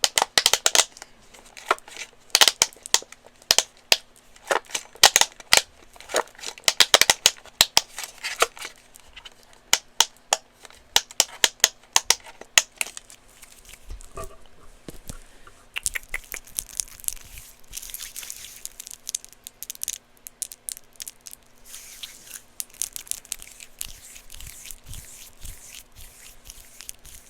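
Handheld plastic pop fidget toy snapping over and over, sharp loud pops in quick runs. About thirteen seconds in the pops stop and give way to softer rustling and crinkling handling sounds.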